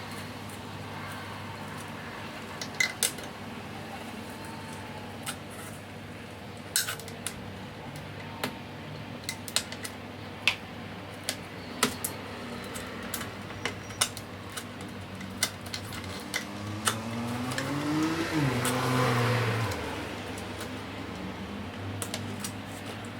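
Scattered sharp plastic clicks and taps from working the clips and trim of a car's side-mirror cap, over a steady low hum. About three quarters in, a louder drone rises in pitch, holds briefly and then falls away.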